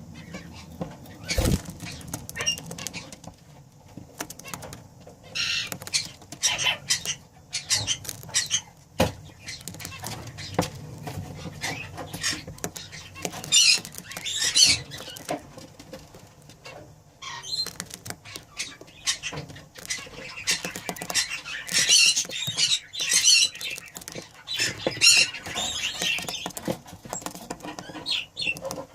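Budgerigars chattering and chirping in short, scratchy bursts, busier in the second half, with scattered clicks and a couple of sharp knocks, one about a second and a half in.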